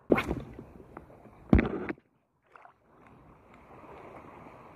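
Shallow seawater sloshing and lapping around a wading angler: a couple of short loud swishes in the first two seconds, then a steady wash of moving water.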